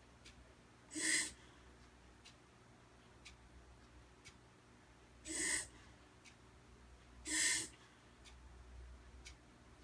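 Shetland sheepdog reverse sneezing: three short, forceful inhalations through the nose, one about a second in and two more close together past the middle. The owner takes this for a reverse sneeze, alarming to watch but harmless. A clock ticks faintly about once a second.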